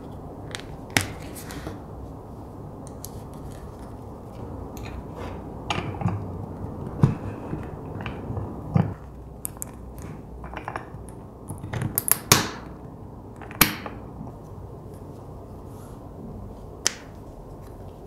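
Leather panels handled and metal snap buttons set with a bench hand press. Scattered sharp clicks and knocks of metal dies and button parts, the loudest cluster about twelve to fourteen seconds in.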